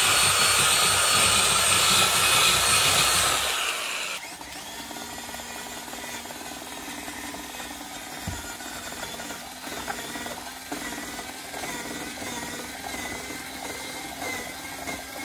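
Corded electric drill running loudly for about four seconds, boring into the base of a wall, then stopping abruptly. A second electric drill then runs more quietly with a steady motor whine as its long bit works through the wood.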